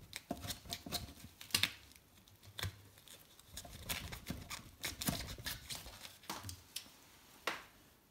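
Utility knife cutting through adhesive-backed foam rubber sealing tape on a wooden bench: a string of short, irregular scraping cuts and clicks that stops about seven and a half seconds in.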